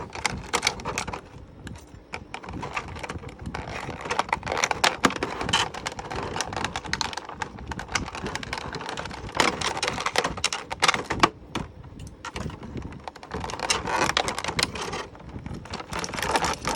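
Plastic toy packaging and an action figure being handled: irregular clicks, taps and rustling.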